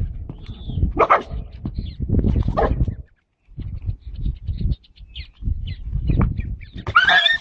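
A dog barking in short outbursts as it guards its food bowl from a donkey, then giving a high yelp near the end.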